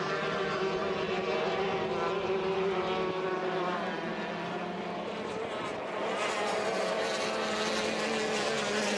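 Several racing hydroplanes running at high revs on the water, their engine notes overlapping and rising and falling in pitch as they race around the course.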